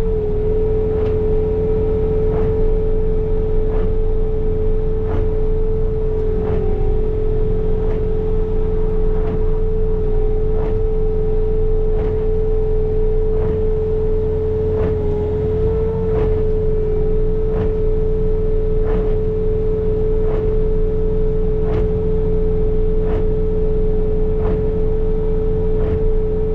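Bobcat T66 compact track loader's diesel engine running steadily while it works its snow blower attachment, heard from inside the closed cab: a constant drone with a steady high whine over it and a faint tick repeating a little more often than once a second.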